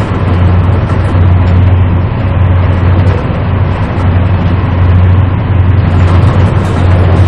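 Passenger train running at speed, heard from inside the carriage: a steady low rumble with a strong hum under it.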